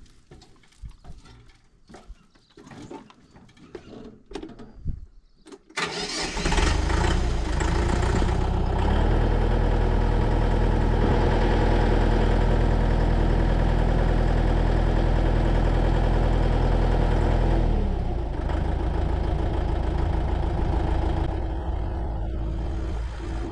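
A few knocks as someone climbs aboard, then the 55 hp UHI tractor's diesel engine starts about six seconds in. It runs with the revs held up for about ten seconds while the front loader's hydraulics lift the bucket, then settles back to a lower steady idle.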